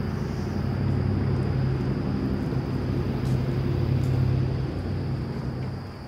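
Low engine hum of a passing motor vehicle, swelling up at the start and fading away near the end.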